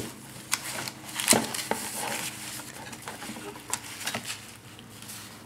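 Light rustling of a protective wrap being pulled off a plastic dome security camera, with a few soft clicks and taps as the housing is handled.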